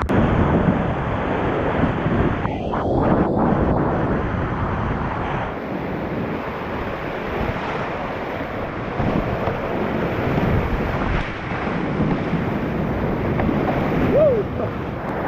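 Rushing whitewater of a mountain creek rapid, a steady, loud, even noise.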